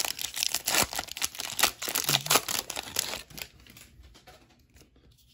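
Wrapper of a 2020 Bowman baseball card pack being torn open and crinkled, a dense crackle that dies down after about three seconds.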